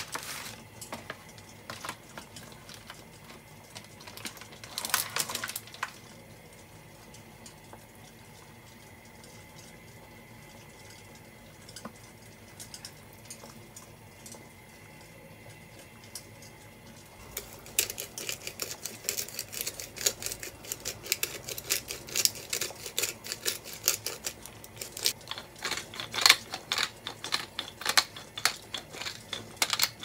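Wooden pepper mill grinding peppercorns over food, a fast, uneven run of crackling clicks that starts a little past halfway and lasts to the end. A brief rustle about five seconds in.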